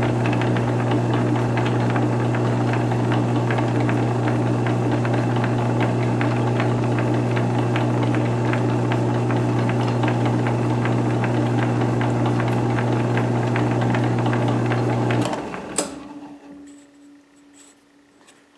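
South Bend metal lathe running steadily with a knurling tool pressed into the turning part. About fifteen seconds in it is switched off and coasts down to near quiet, with a single sharp click as it winds down.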